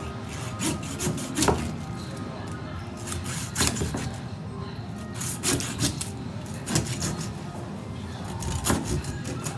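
Long slicing knife sawing crosswise through a whole saithe to cut it into steaks: rubbing, scraping strokes with sharp knocks scattered throughout, about nine in all.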